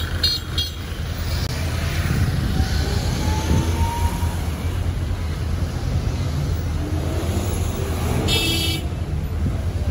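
Street traffic: a steady low rumble of vehicle engines, with a short high horn toot about eight seconds in.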